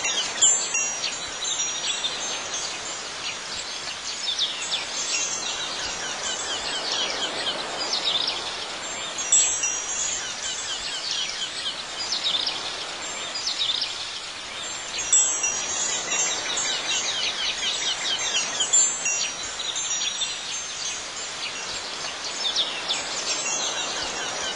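Ambient outdoor soundscape of wind chimes ringing over clusters of high, rapid chirping that swell and fade every few seconds.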